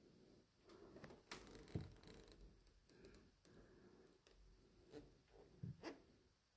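Near silence broken by a few faint knocks, clicks and scuffs: handling noise from a person moving about a quiet room with a wooden floor. Two soft knocks come a little over a second in, and a small cluster comes about five to six seconds in.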